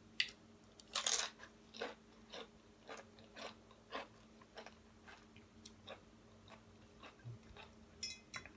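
Biting into a crisp tortilla chip, with a loud crunch about a second in, then steady crunchy chewing, the crunches growing fainter toward the end.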